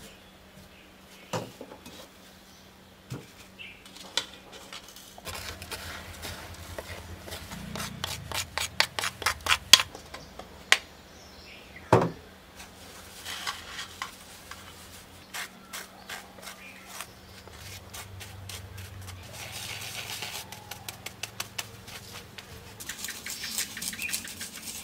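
Metal spoon scraping and tapping inside a small wire kitchen sieve, pushing a white powder through into a clay bowl. There are scattered clicks, a quick run of taps about a third of the way in, a sharp knock in the middle, and stretches of raspy scraping later.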